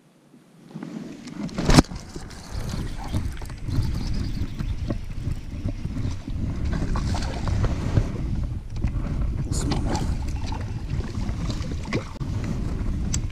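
Rumbling wind noise on the camera microphone while a hooked fish is fought from a kayak, with the fish splashing at the surface and scattered clicks; a sharp knock about two seconds in.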